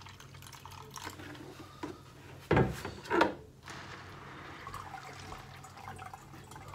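Water poured from a plastic bucket onto a bed of clay pebbles, trickling steadily as it drains through the micro siphon into the tank below. Two thumps about half a second apart a little before halfway, as the bucket is set down.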